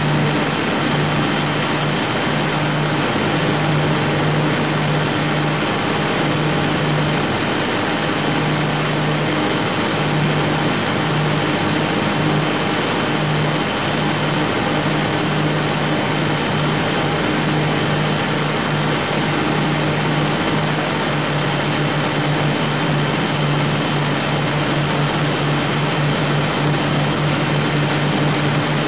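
Twin Scania 12-litre six-cylinder diesel engines of a fast powerboat running steadily under way: a constant drone with a steady hum, over a loud rushing noise of wind and water.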